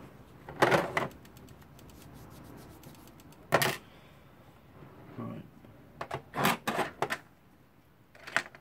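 Brass clock-movement plate and small steel and brass parts being handled and set down on a desk during disassembly: sharp metallic clacks and taps in short clusters, with faint light ticking between them.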